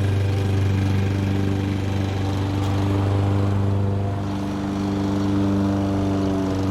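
Gasoline lawn mower engine running at a steady speed, its level dipping slightly about four seconds in before picking back up.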